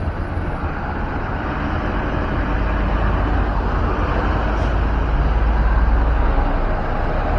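A bus passing close by, its engine giving a heavy low rumble that grows louder about five to six seconds in.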